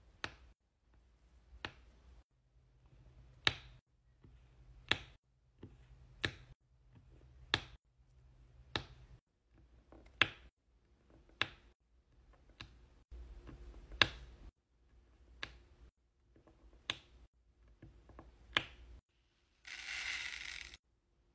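Diamond painting pen pressing resin drills onto the adhesive canvas: a sharp tap about every second and a half. Near the end comes a brief hissing rattle of many small drills poured into a plastic tray.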